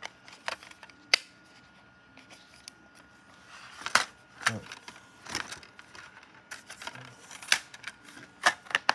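Plastic DVD cases and discs being handled, making a scatter of sharp clicks and clacks. There are a couple at the start, a quiet stretch, then clusters in the second half.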